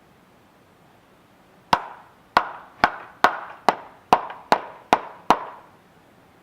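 Hammer driving a hubcap onto the end of a tricycle's rear axle: nine sharp strikes, about two a second, each with a brief ring, starting a little over a second and a half in.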